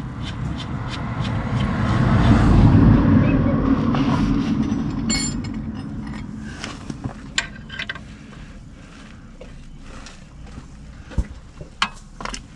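A vehicle passes by, swelling to its loudest a few seconds in and fading away. It is followed by scattered light clicks and taps as the oil drain plug is threaded back in and tightened.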